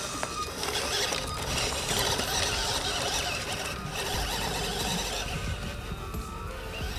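Small 180-size brushed motor and plastic gearbox of a FAYEE FY003 1/16 RC truck whirring as it drives over dirt and loose stones, the whine wavering in pitch with the throttle.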